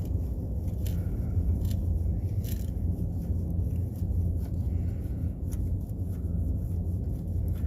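Steady low hum, with a few scattered light metallic clicks and taps of hand tools working a starter bolt loose.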